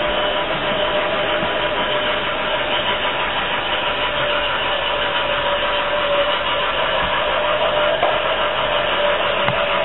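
Remote-controlled toy train running around its track, with a steady motor whine over a constant hiss.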